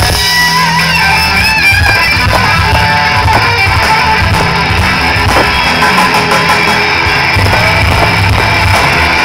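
Live rock band playing loud and steady: strummed electric guitar over bass and drums.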